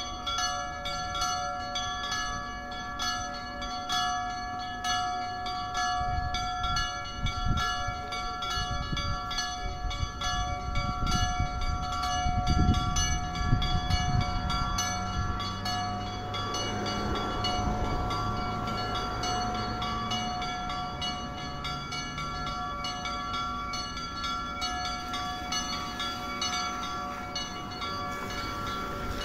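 Two church bells, cast by G. B. De Poli of Udine, swung by hand in the Friulian 'a slancio' style and ringing continuously. Their strikes overlap into a steady, many-toned ring. A low rumble swells and fades in the middle.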